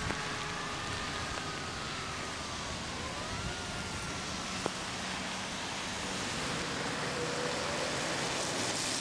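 Steady hiss of heavy rain and vehicles passing on a wet road, with a few faint sliding tones in the first four seconds and a single click a little past the middle.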